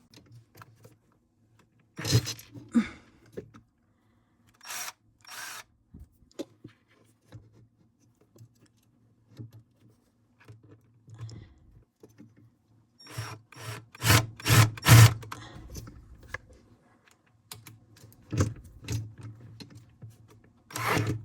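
A screw being driven to fix a metal sliding shelf bracket to a cabinet floor: scattered clicks, knocks and rattles of the bracket and tools, with a loud cluster of knocks about two thirds of the way through.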